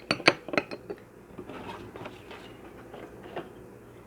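A spoon stirring honey into freshly squeezed lemon juice to dissolve it, with quick sharp clinks against the container in the first second, then softer scraping strokes.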